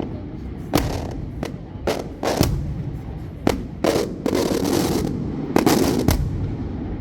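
Fireworks display: a run of about eight sharp bangs from exploding aerial shells at irregular intervals, with a stretch of dense crackling just past the middle.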